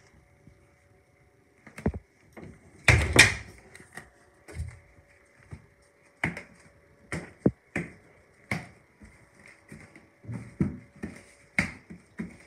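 Footsteps on a hardwood floor: a run of soft thumps, roughly one a second in the second half, with a louder bump about three seconds in.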